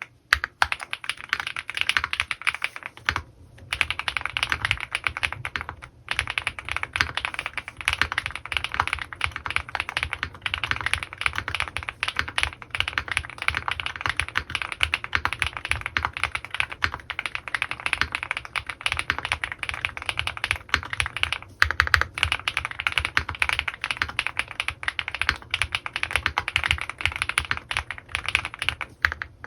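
Continuous fast typing on an Owlab Mr.Suit custom mechanical keyboard with lubed Gateron x Swagkeys Pure Berry switches and GMK keycaps, with brief pauses about three and six seconds in.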